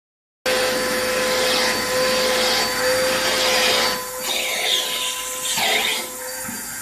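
Vacuum cleaner running with a steady whine over a rushing hiss. From about four seconds in the sound drops and shifts in patches, as the airflow at the nozzle changes.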